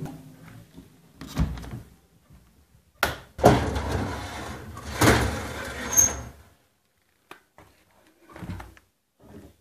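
Incubator egg trays being handled and slid along their runners: a knock, a sharp clack about three seconds in, then a few seconds of scraping and rattling, with fainter knocks near the end.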